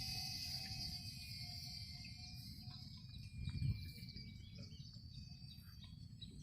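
Distant whine of a micro electric RC warplane's motor and propeller in flight, slowly fading and falling slightly in pitch as it moves away. Wind rumbles on the microphone throughout, with a gust about three and a half seconds in.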